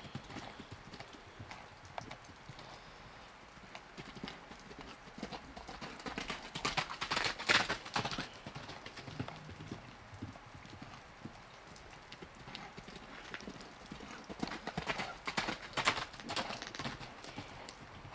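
A horse's hoofbeats cantering on muddy, snow-covered ground, in irregular strides, louder in two passes about seven seconds in and again around fifteen to seventeen seconds in.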